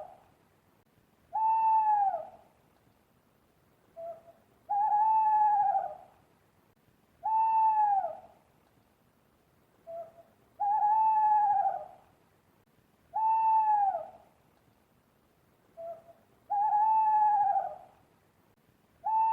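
Owl hooting: a long, slightly arched hoot of about a second, repeated every two and a half to three seconds, every other hoot led by a short, lower note.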